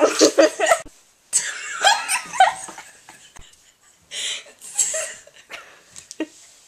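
A girl laughing in three loud bursts, with breathy gaps between them.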